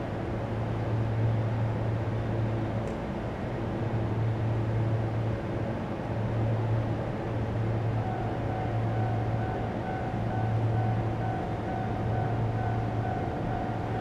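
Low hum of an electric train, swelling and easing every second or two. About eight seconds in, a pulsing electronic tone joins it.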